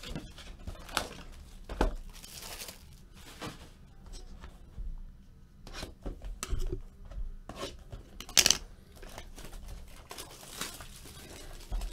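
Sealed trading-card boxes being unwrapped by hand: shrink-wrap cellophane tearing and crinkling, with cardboard boxes and flaps rubbed and knocked. One loud, sharp tear about two-thirds of the way through.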